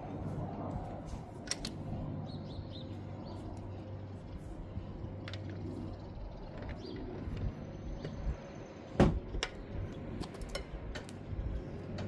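Lug nuts being loosened with a breaker bar and 19 mm socket: scattered clicks and knocks of the socket and bar on the wheel's nuts, with one sharp, loud crack about nine seconds in.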